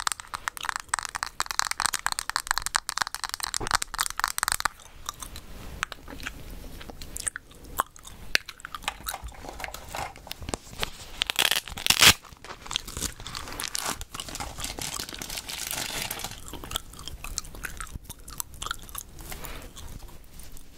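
Close-miked gum chewing with crackly clicks, mixed with make-up handling sounds: a hand rubbing and tapping on the microphone's foam windscreen for the first few seconds, then rummaging and a single sharp click about twelve seconds in.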